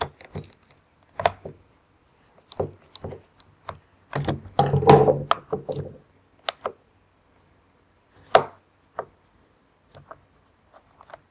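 Irregular clicks and knocks from screwdrivers working the screws of a Makita cordless reciprocating saw's plastic handle housing, and from tools and the saw being handled on a wooden workbench. There is a denser clatter about four to six seconds in and one sharp click a little past eight seconds.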